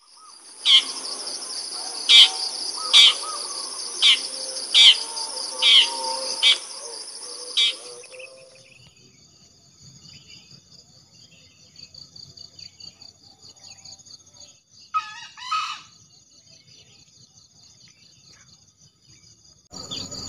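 Insects drone steadily at a high pitch while a bird gives about eight sharp, loud calls a second or so apart over the first eight seconds. After that a quieter insect chorus goes on, broken by one short two-part bird call about fifteen seconds in.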